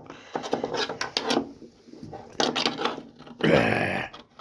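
A cable being handled and threaded through a carrying handle: a string of clicks, taps and rustles, with a short, loud rasping noise about three and a half seconds in.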